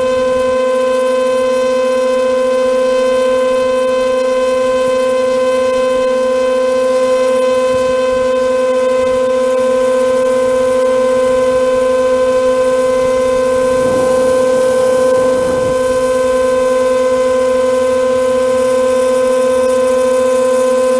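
Twin electric propeller motors of a JJRC RC jet, heard from a GoPro mounted on its back: a loud, steady whine that holds one pitch at constant throttle. A brief rush of noise comes about two-thirds of the way in.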